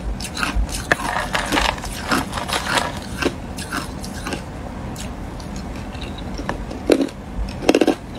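Hard, clear ice cubes being crunched between the teeth: rapid crackling crunches at first, thinning out in the middle, with a few louder crunches near the end.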